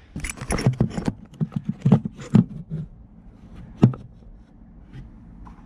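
A quick run of clicks and knocks for about two and a half seconds, then one sharp knock about four seconds in.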